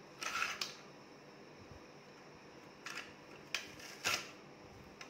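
Stainless steel lever-press French fry cutter being worked: the metal handle and blade grid clack and scrape as halved potato is pushed through into strips. One longer burst comes just after the start, then three short clacks in the second half.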